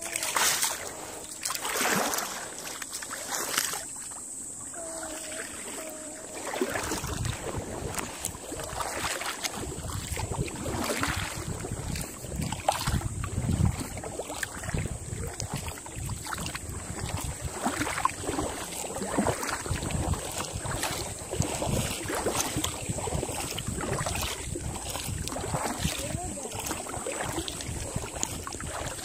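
Kayak paddle dipping and splashing in calm water, stroke after stroke about every second and a half. From about seven seconds in, wind rumbles on the microphone.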